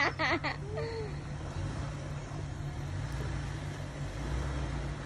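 Jeep engine running at low, steady revs while it crawls over a rutted dirt trail, growing a little louder and deeper near the end. A brief voice is heard right at the start.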